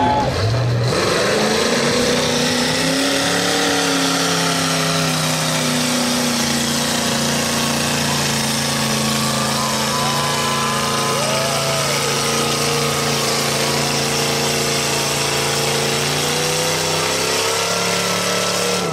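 Mud truck's engine revving hard as the truck plows through a deep mud pit: the pitch climbs over the first few seconds, then holds high and steady.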